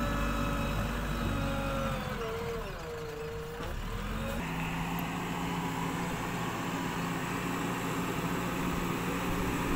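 JCB backhoe loader's diesel engine running under load as the front bucket pushes soil. A little over two seconds in the revs dip and come back up, then the engine runs steadily as the machine reverses.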